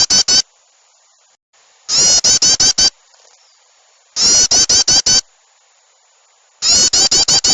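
Bird-lure recording of agitated, rapid chattering bird calls, mixing yellow-vented bulbul (trucukan) alarm chatter with small-bird calls. It comes in loud bursts of five or six quick notes about a second long, repeating evenly every two seconds or so, like a loop.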